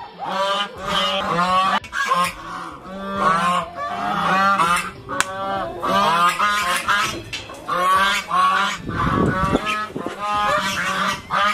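Domestic geese honking over and over, the calls coming about twice a second.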